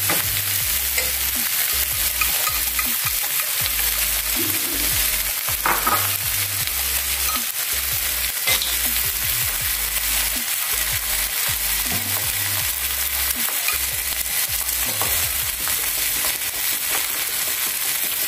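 Two whole spiced fish sizzling in oil in a double-sided non-stick grill pan: a steady frying hiss with a few short crackles.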